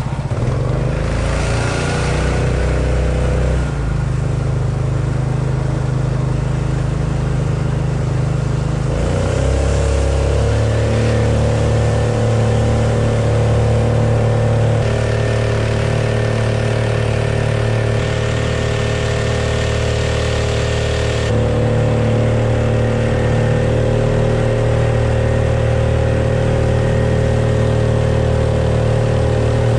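Small boat motor pushing a kayak upstream. Its pitch rises about a second in and again near nine seconds as it speeds up, then it runs steadily, with water rushing and splashing along the hull.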